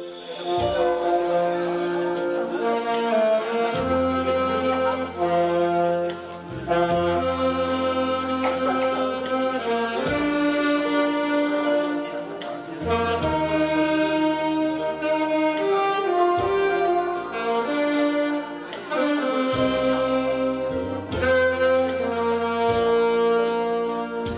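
Two saxophones playing a slow melody in duet over an accompaniment track with bass notes and a steady beat.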